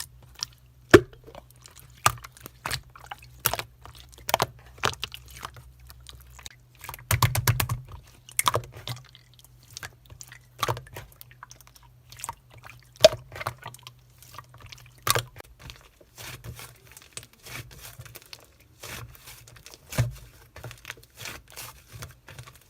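Slime being worked, making irregular sticky clicks and pops, with a quick run of them about seven seconds in.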